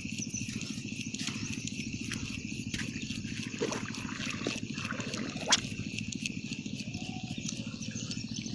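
A steady low, fast-pulsing hum, like an idling motor, under a steady high insect-like buzz. A sharp click comes about five and a half seconds in.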